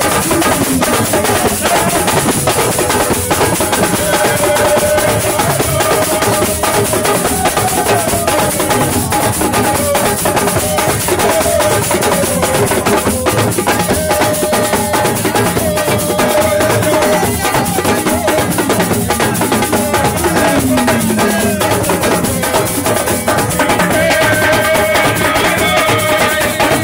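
Music driven by fast, dense drumming, with a wavering melody line carried over it.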